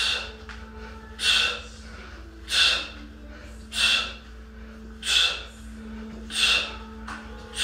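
A man's forceful exhalations during bicycle crunches, one sharp breath out about every 1.3 seconds, evenly paced.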